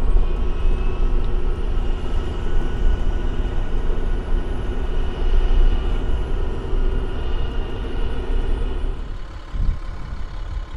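A 6x6 expedition truck's diesel engine running at road speed, with tyres on the gravel road, heard inside the cab as a steady, loud rumble. About nine seconds in the rumble drops away suddenly to a quieter hum.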